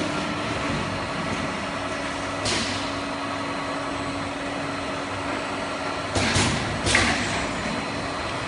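Automatic bottle filling and cap-closing machine line running with a steady mechanical hum. Short compressed-air hisses come from its pneumatic actuators, once about two and a half seconds in and twice close together after six seconds.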